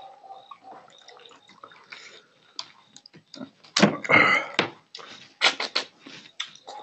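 Wet squelching and crackling of a curried rohu fish head being squeezed and torn apart by hand in gravy, loudest about four seconds in. A few sharp wet smacks of eating from the fingers follow.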